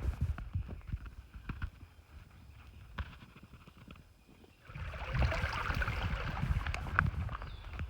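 A hiker's footsteps on a trail, a run of light scuffs and thuds. About halfway through, a louder rustling, crunching noise starts suddenly and carries on to the end.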